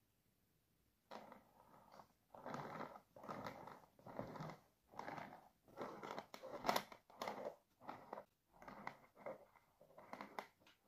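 Metal spatula spreading and smoothing cream cheese frosting across a cake top: a series of short scraping, smearing strokes, a little more than one a second, beginning about a second in.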